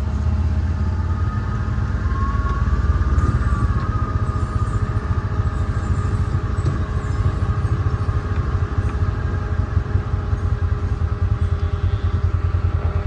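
Side-by-side utility vehicle's engine running with a steady low pulsing, cut off right at the end.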